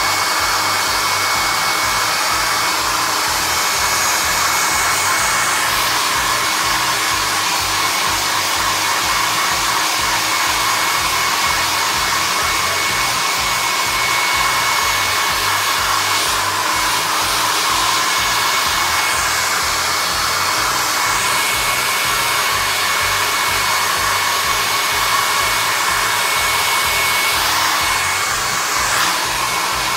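Handheld hair dryer blowing continuously, a steady rush of air with a thin high whine from its motor and fan. The rush changes briefly now and then as the airflow shifts.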